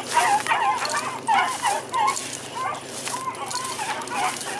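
Beagles baying on a rabbit's track, a quick, uneven string of short high calls, two or three a second: the hounds are on the scent and running the trail.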